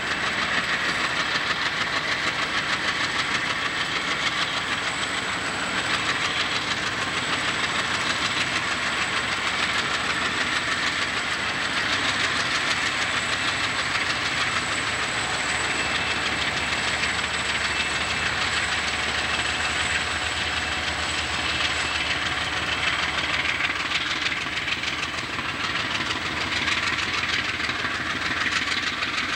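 Slow-moving freight train headed by Union Pacific diesel locomotives rolling past, a steady rumble and hiss of wheels on rail mixed with engine noise. A low diesel engine drone rises about halfway through and fades again.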